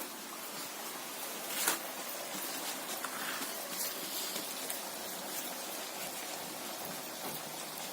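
Batuk, lentil-batter doughnuts, deep-frying in hot oil: a steady sizzle speckled with small crackles, with one sharper tap about two seconds in.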